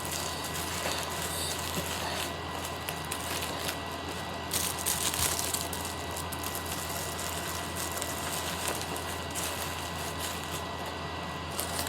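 Faint rustling and crinkling as sleeping masks are stuffed back into their bag, with a brief louder rustle about five seconds in, over a steady low electrical hum.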